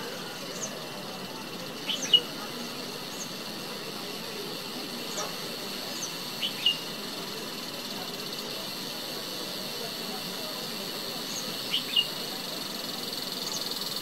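Cicada buzzing: a steady high-pitched drone that swells louder near the end. Three short, sharp two-note chirps stand out above it, and fainter high chirps come and go.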